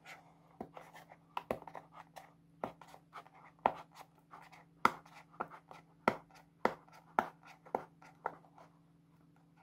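Fingernails and fingers picking and scratching at a small cardboard product box, trying to open it by hand: irregular sharp ticks and short scrapes that stop about a second before the end. A faint steady hum runs underneath.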